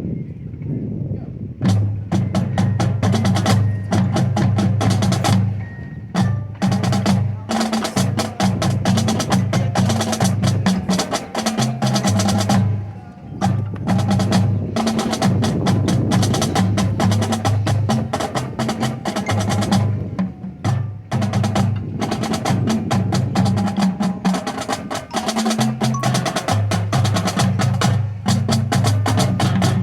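Drumline playing: rapid, dense snare and drum strokes and rolls over sustained low pitched notes, broken by brief pauses about 13 and 20 seconds in.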